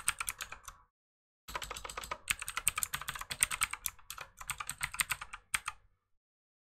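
Typing on a computer keyboard in quick runs of keystrokes: a short burst, a pause of about half a second, then a longer run of about four seconds.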